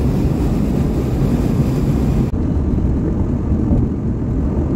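Road noise inside a moving car's cabin at highway speed: a steady low rumble of tyres and engine. About two seconds in, the higher hiss drops away abruptly and the low rumble carries on.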